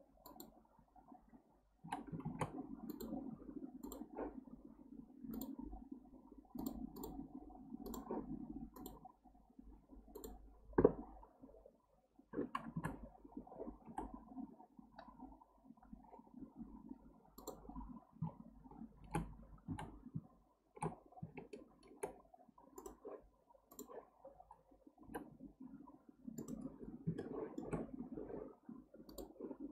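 Scattered computer mouse and keyboard clicks over a low, uneven rumble that comes and goes, with one louder knock about eleven seconds in.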